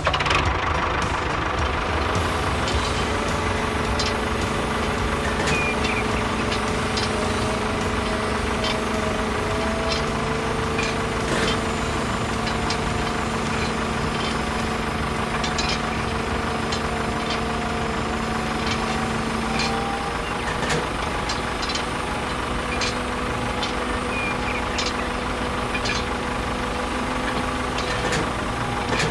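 A vehicle engine idling steadily, its pitch shifting slightly twice, with a few faint clicks and taps over it.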